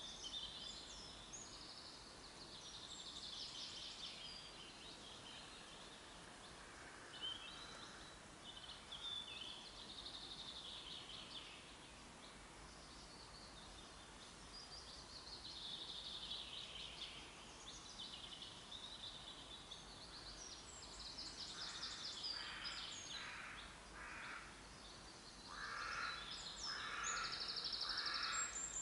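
Woodland songbirds singing, several trills and whistled phrases overlapping throughout. In the last third come two runs of four or five harsh, evenly spaced calls.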